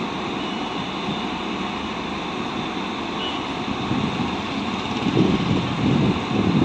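Classic ICF electric multiple unit suburban train running, a steady whooshing rumble, with wind buffeting the microphone in louder gusts about five seconds in.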